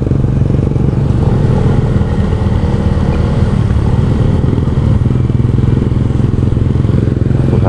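Motorcycle engine running steadily at an even cruising speed, heard from the bike during the ride.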